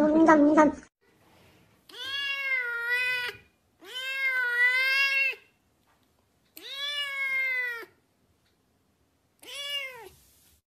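A kitten meowing four times, long drawn-out high meows that rise and fall in pitch, the last one short; before them, a louder cat sound cuts off within the first second.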